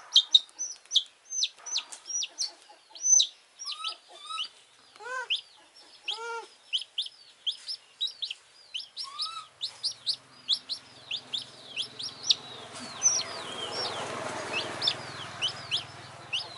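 A wet baby chick, just out of the water and being rubbed dry in a cloth, peeping loudly and without pause: short high peeps that slide down in pitch, a few each second. A few lower calls come about four to six seconds in, and a low hum and a rustle of the cloth join in the second half.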